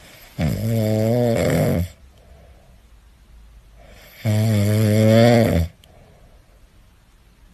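A dozing cat snoring: two long snores about three and a half seconds apart, each lasting about a second and a half, with faint breaths between them.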